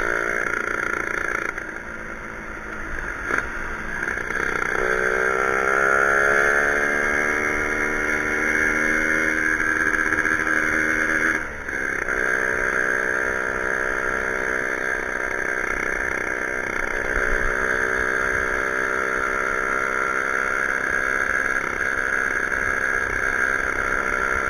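Two-stroke motorcycle engine running, its revs rising sharply about five seconds in, dropping briefly near twelve seconds, then picking up and holding fairly steady.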